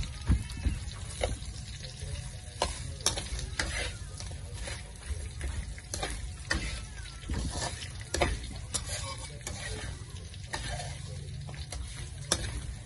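Long metal spatula scraping and clanking against a large metal wok during stir-frying, in irregular strokes, over the steady sizzle of the food frying in the oil.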